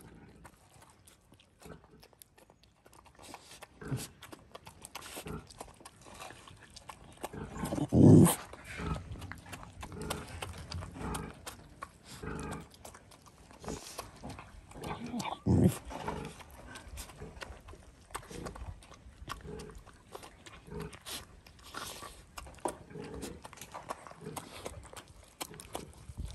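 A dog eating rice from a plastic bowl: irregular chewing, smacking and clicks of teeth against the bowl. Two louder, lower sounds come from the dog about eight and fifteen seconds in.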